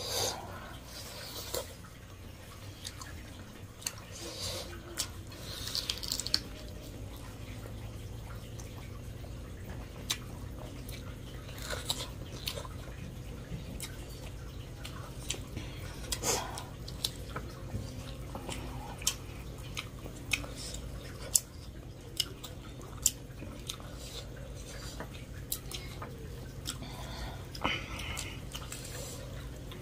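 Close-up eating sounds of rice and curry being eaten by hand: many scattered wet clicks and smacks from fingers mixing the food and from chewing, over a steady low hum.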